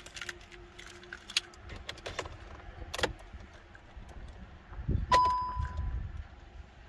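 Car keys jangling and clicking as the ignition key of a Volkswagen T-Roc is turned. About five seconds in, a single dashboard warning chime sounds, one steady tone fading over about a second, over a low rumble; it goes with the oil-change-due notice coming up on the instrument cluster.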